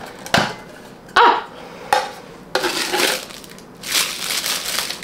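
Hexagonal metal tin being handled and opened, with a few sharp clinks of the lid against the body. In the second half, a plastic bag is lifted out of it and crinkles.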